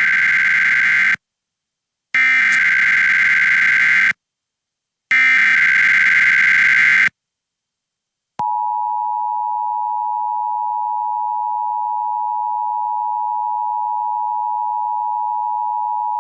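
Emergency Alert System SAME header: warbling digital data tones in three bursts of about two seconds each, with a second's gap between them, the first burst already under way. About a second after the third burst, the steady two-tone EAS attention signal sounds for about eight seconds and cuts off near the end. Together they open a Required Monthly Test of the alert system.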